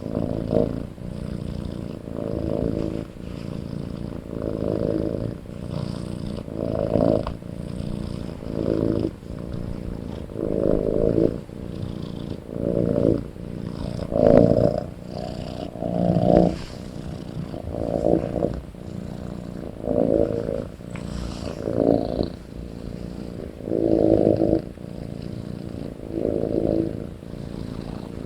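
A kitten snoring loud, a rasping snore with each breath about every two seconds over a continuous low rumble.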